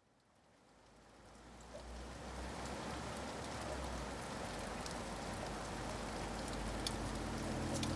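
Rain ambience fading in from silence and growing steadily louder, with scattered drops ticking. Low, steady music notes begin faintly just before the end.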